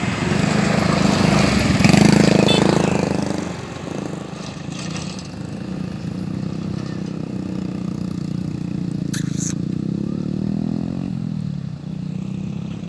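Motorcycle engine revving, loudest about two seconds in, then running steadily, with its pitch falling near the end.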